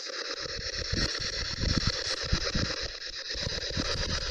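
SB11 spirit box sweeping through radio stations, giving a steady hiss of static chopped into fine regular steps, with irregular low thumps on the microphone throughout.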